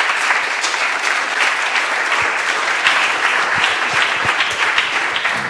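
Audience applauding: dense, continuous clapping that starts to thin out near the end.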